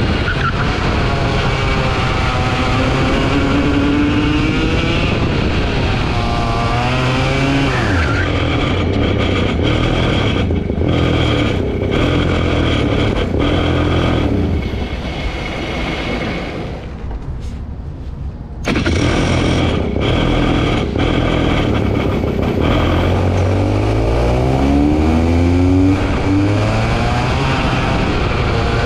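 Racing go-kart engine heard from on board, its pitch climbing and falling again and again as the driver accelerates and lifts through the corners. Around seventeen seconds in it goes briefly quieter and duller, then picks up sharply again.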